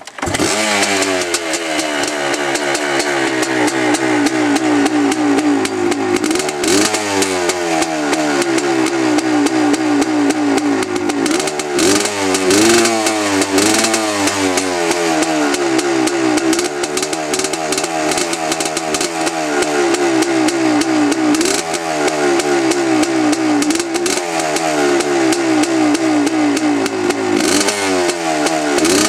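500cc-class two-stroke dirtbike engine catching right at the start with the choke on, then running at a fast, uneven idle with the throttle blipped up and back down several times.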